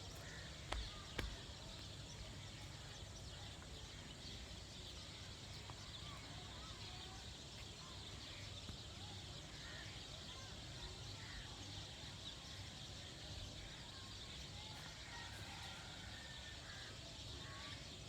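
Faint outdoor ambience: scattered birds chirping over a steady low rumble, with two sharp knocks about a second in.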